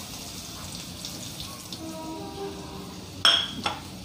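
Chopped onion sizzling in hot coconut oil in an aluminium kadai, a steady frying hiss. About three seconds in there is a sharp knock against the pan, then a smaller one.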